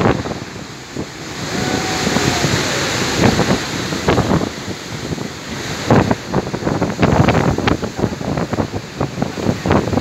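Big storm waves breaking on rocks with a steady hiss of surf and spray, overlaid by strong gale wind buffeting the microphone in irregular gusts.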